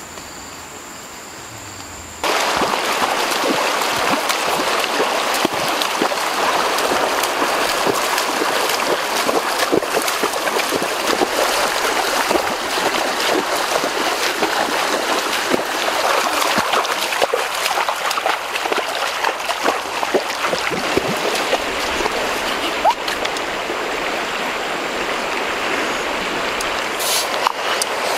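Fast-flowing river water rushing steadily, setting in abruptly about two seconds in.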